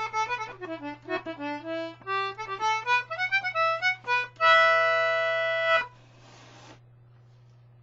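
A 19th-century George Jones G/D Anglo concertina playing the last bars of a fast reel: quick reedy runs of notes that end on a chord held for about a second and a half. A short hiss of air follows, then only a faint steady hum.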